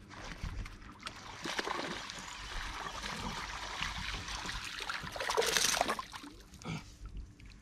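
Water splashing as a hooked peacock bass thrashes at the surface near the boat, with the loudest splash about five and a half seconds in.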